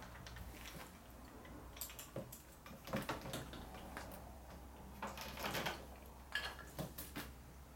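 Faint, scattered metallic clinks and knocks of tools and parts being handled, a few a second at most, over a low steady hum.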